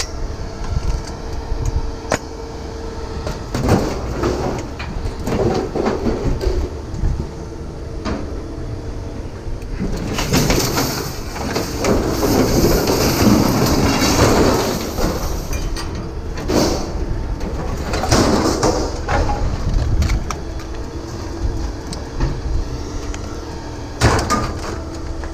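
Scrap metal being handled and broken down: clanks and knocks, and a long scraping rattle partway through, over a steady low rumble.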